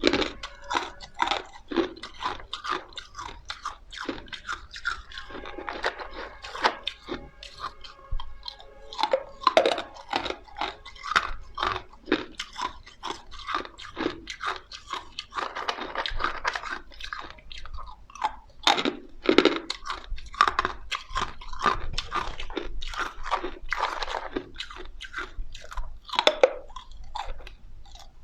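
Close-miked biting and chewing of ice: irregular crunches, one after another. A squeaky, ringing tone sounds for a few seconds near the middle.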